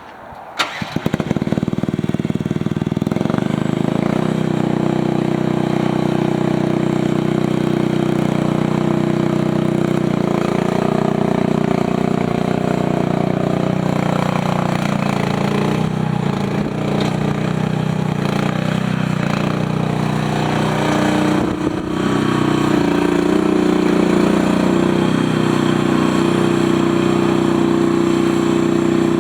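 Mini skid steer engine starting less than a second in, then running steadily. About two thirds of the way through it dips briefly and then runs louder.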